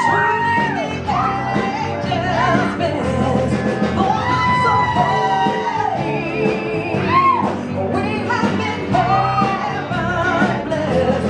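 Live band playing a song: a woman sings lead with vibrato over electric guitar, bass guitar, drums and keyboard.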